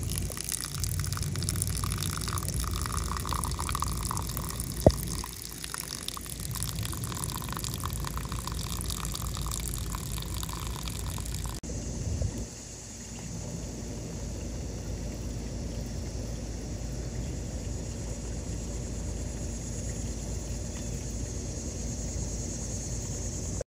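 Garden hose running water into a pond, a steady pouring and splashing. A single sharp knock comes about five seconds in, and the sound changes abruptly about halfway through.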